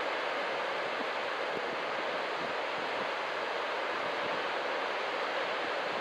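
Ocean surf breaking along a beach, a steady unbroken wash of noise.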